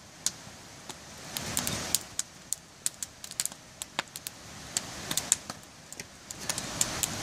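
Wood fire burning in the firebox of a replica Roman pottery kiln: many sharp, irregular crackles and pops over a rush of flame that swells twice.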